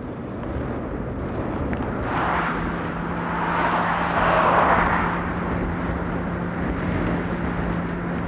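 Wind and road noise on a bike-mounted camera while riding, with an oncoming pickup truck towing a trailer passing: its tyre and engine noise swells to a peak about four to five seconds in, then fades.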